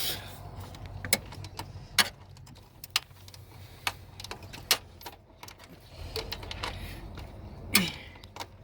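Hand tools working on a car engine bay: irregular metallic clicks, clinks and knocks, a few of them sharp, over a low steady hum.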